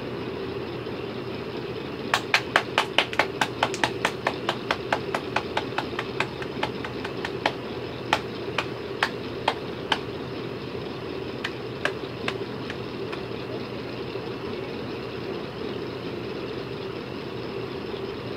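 Hands clapping: a quick run of claps, about four to five a second, starts about two seconds in and then slows to scattered single claps that stop about halfway through. A steady low hum continues underneath.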